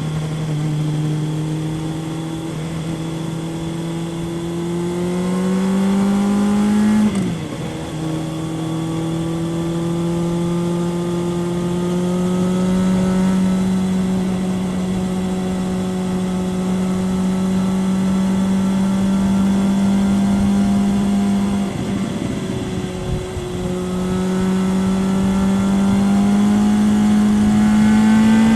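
Kawasaki ZRX 1100 inline-four through a Yoshimura exhaust, pulling steadily under throttle while riding, its note slowly rising in pitch. It drops sharply, as at a gear change, about a quarter of the way in, again about three-quarters through, and once more at the very end.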